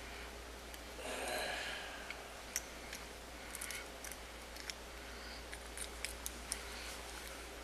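Faint scattered clicks and taps from small items being handled, with a brief rustle about a second in, over a steady low hum.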